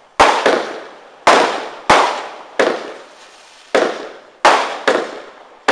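A 120-shot firework barrage (cake) firing: eight sharp bangs in under five seconds, irregularly spaced half a second to a second apart. Each bang fades away over the following fraction of a second.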